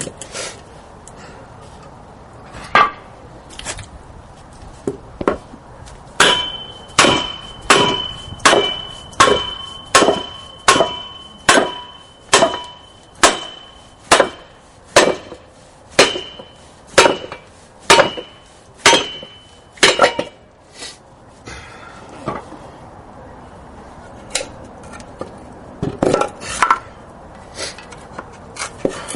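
Hammer blows on a rust-seized wheel hub assembly, struck through a block of wood to drive it out of the brake rotor. After a few scattered hits comes a steady run of about twenty blows, roughly one and a half a second, many leaving a short metallic ring from the rotor. A few more hits come near the end.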